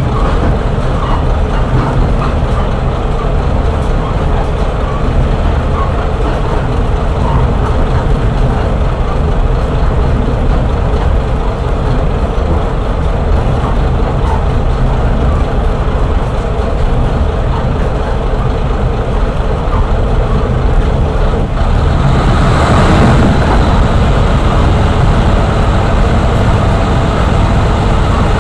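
Kashima Rinkai Railway 6000 series diesel railcar heard from inside the passenger cabin: its vertical diesel engine and wheels running steadily along the track with a constant low hum. About 22 seconds in, a louder rushing swell lasts a couple of seconds.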